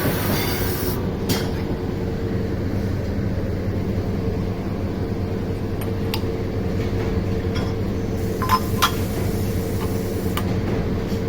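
Steady hum of factory machinery, with a few light metallic clinks: one about a second in and two close together past the middle.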